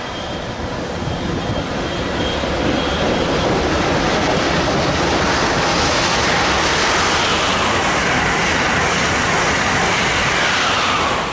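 An Amtrak Acela Express high-speed electric trainset approaching and passing close by at speed. A rushing sound of wheels and air builds over the first few seconds and then holds loud. A whine falls in pitch as the train goes past near the end.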